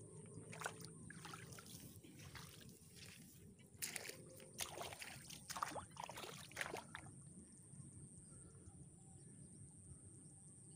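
Faint splashing and sloshing of water in a flooded rice paddy: a scatter of soft splashes over the first seven seconds, then quiet except for a faint steady high whine.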